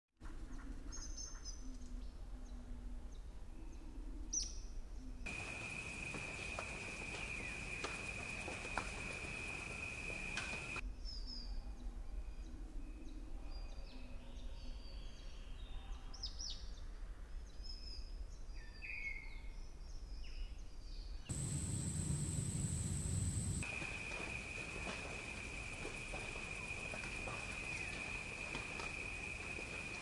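Spliced nature ambience: small birds chirping and calling, alternating with stretches of a steady, high-pitched insect drone. The sound changes abruptly several times, with a short louder rushing stretch a little after two-thirds of the way through.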